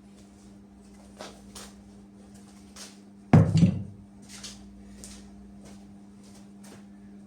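A loud knock with a short clatter a little past three seconds in, with a few light clicks and taps before and after it, over a steady low hum.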